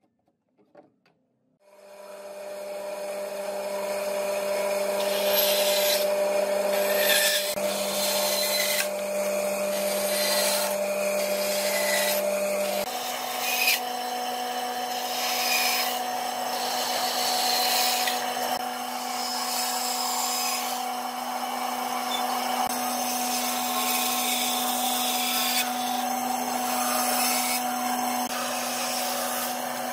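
Band saw running and cutting through notched wooden lattice strips. It comes in about two seconds in, with a steady motor hum under the noise of the blade in the wood. The hum shifts to a higher pitch about halfway through.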